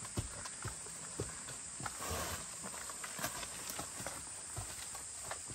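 Footsteps of hikers and dogs on a rocky, leaf-strewn jungle trail: irregular light knocks and scuffs, a few a second, over a steady background hiss.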